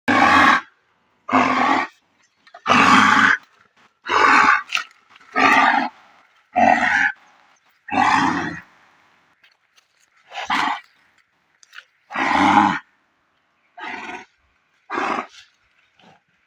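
A bull giving about eleven loud, short groans one after another, every second or two, in distress, said to be from a venomous snake's bite.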